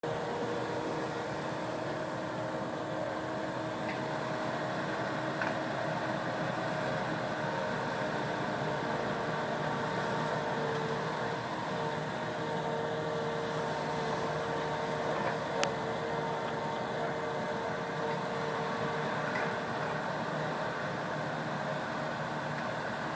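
John Deere 750K crawler dozer and 200D excavator at work, their diesel engines running steadily with a held whine over the engine noise. A single sharp click about two-thirds of the way through.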